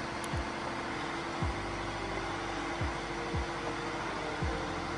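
Steady engine-room machinery drone, with five short low thumps spread through it.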